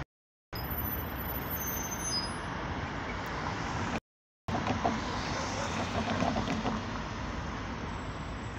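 City street traffic: cars driving past and a tram pulling in close by, a steady mix of engine and rolling noise. The sound drops out completely twice for about half a second, at the start and about four seconds in.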